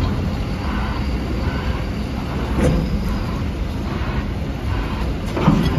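Loading shovel running with its bucket being worked: a steady low mechanical rumble, with a couple of brief knocks.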